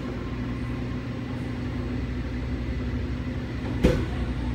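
Steady low mechanical hum from café equipment, with a single sharp knock near the end.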